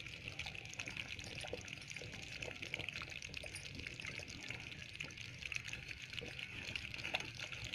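Thick fish gravy (meen kuzhambu) boiling in a clay pot: a steady, faint bubbling with many small pops, the gravy boiled down and thickened.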